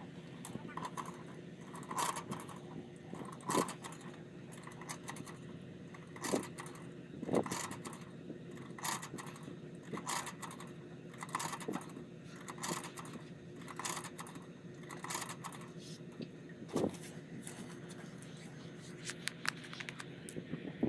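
Irregular light clicks, taps and scrapes of small hard objects being handled, about one a second, over a faint steady hum.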